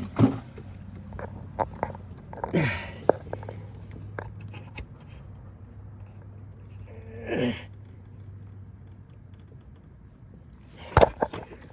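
Scattered light clicks and clinks of a wrench working on metal, over a low steady hum, with two short rushing noises and a louder burst of clicks near the end.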